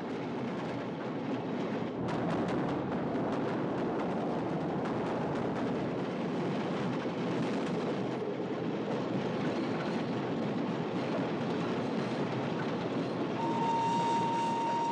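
Train running fast on the rails: a steady, dense rumble and rattle of wheels on track with many quick clicks. Near the end a steady high whistle begins and holds its note.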